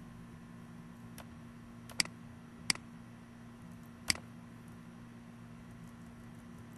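A few sharp clicks of a computer mouse: a faint one, then three plain ones over about two seconds, the first a quick double. They sit over a steady low electrical hum and hiss.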